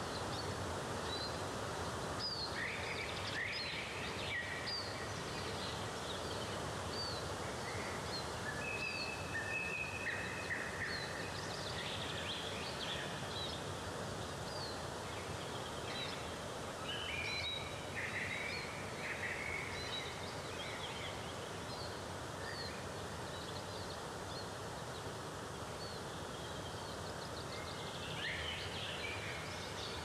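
Steady rush of a waterfall with many small songbirds chirping and singing over it, including a few longer whistled notes.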